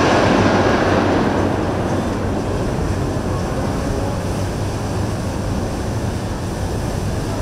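Large twin-engine motor yacht cruising past: a steady low engine drone under the rush of its bow wave and wash, loudest in the first second or two, then settling into an even rumble.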